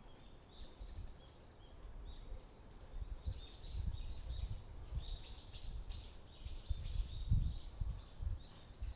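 Small birds chirping in quick, repeated high notes, busiest in the second half, over irregular low thumps of footsteps.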